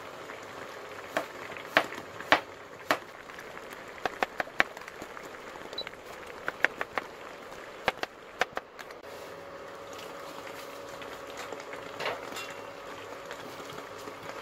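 Kitchen knife cutting peeled taro on a wooden cutting board: a run of sharp knocks, several in quick succession about four seconds in, that stop after about eight seconds. Under them is a steady low hiss from a pot of ginkgo nuts simmering.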